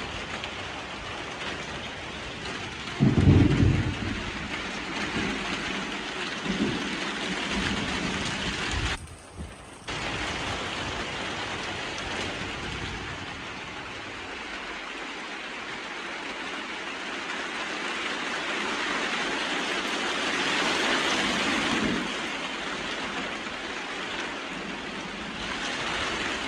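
Heavy tropical rain falling steadily, with a loud clap of thunder about three seconds in that rumbles on for several seconds before dying away under the rain.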